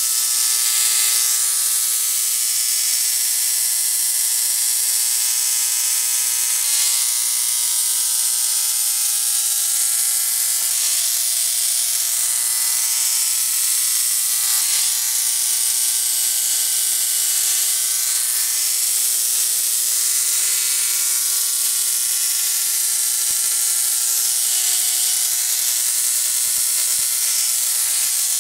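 Rotary-spark-gap Tesla coil running continuously: a steady, loud electric buzz with a strong hiss, its pitch drifting slightly, as small sparks arc between its two stacked toroids.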